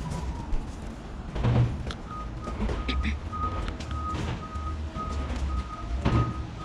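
A vehicle's reversing alarm beeps steadily, about two to three short beeps a second, over a low rumble. Two low thumps come about a second and a half in and near the end.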